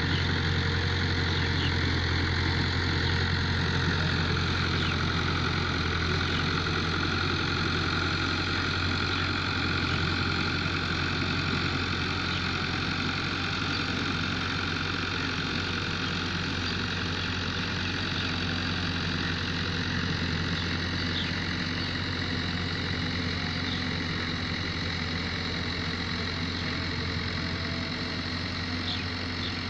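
Farm tractor's diesel engine running steadily under load while it pulls a disc harrow across ploughed soil, a strong low hum, growing slightly fainter in the second half as the tractor moves off.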